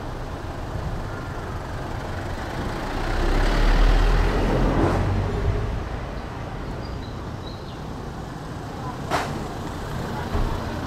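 Road traffic noise. A heavy vehicle passes with a deep rumble about three to five seconds in, and a sharp click comes near the end.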